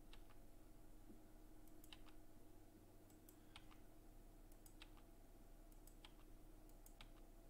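Near silence with scattered, irregular faint clicks from a computer mouse and keyboard, over a low steady hum.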